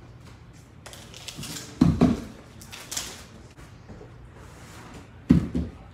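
Bare feet and hands thudding on a laminate floor as a young gymnast tumbles: a pair of heavy thuds about two seconds in and another pair near the end, with lighter scuffs and steps between.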